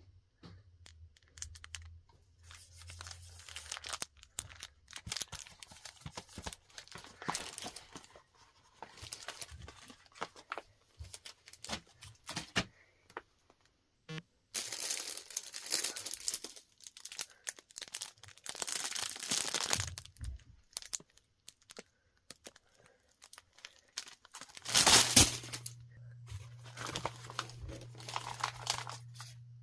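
Packaging being crinkled and torn by hand in irregular rustling bursts, with the loudest burst about 25 seconds in.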